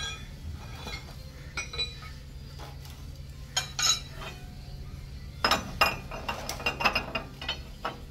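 Metal tools and parts clinking and clanking against each other, a few separate knocks and then a quick run of them in the second half, over a steady low hum.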